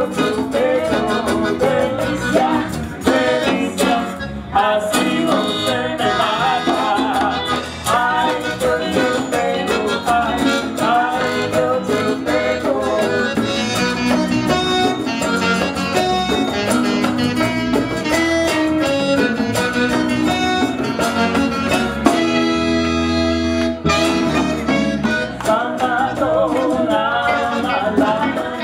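Live Latin band music: a woman singing lead over acoustic and electric guitars, saxophone, keyboard and congas. About three-quarters of the way through, a long note is held for about two seconds.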